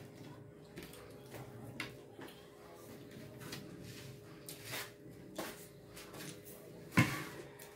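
Eating noises from crispy pata (deep-fried pork hock) being torn apart and eaten by hand, heard as scattered small clicks and mouth sounds. A sharp knock comes about seven seconds in, over a faint steady hum.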